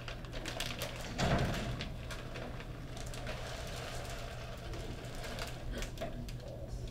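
Mini chocolate chips pattering into a small cup as they are poured from a crinkly plastic bag, with a louder rush of chips about a second in.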